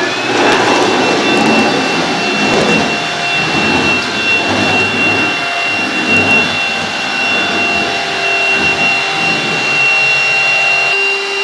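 Cordless stick vacuum cleaner running steadily with a high, even whine over a rush of air that rises and falls as it is pushed about.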